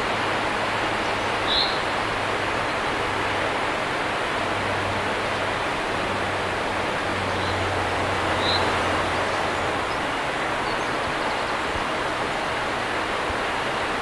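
River water rushing steadily over a low concrete weir and through the shallow rapids below it, an even rushing noise. A bird gives two brief high chirps over it, about a second and a half in and again about eight and a half seconds in.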